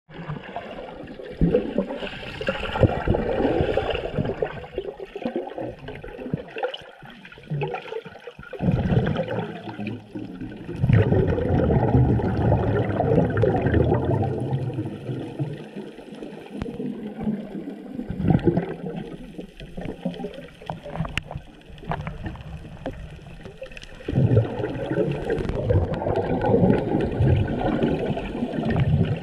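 Water gurgling and bubbling as heard underwater, muffled and low, swelling and fading every few seconds.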